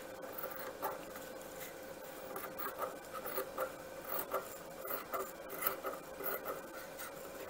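Tailor's scissors snipping through fabric in a run of short, irregular cuts, trimming a pointed corner into a rounded curve. The fabric rustles between the cuts.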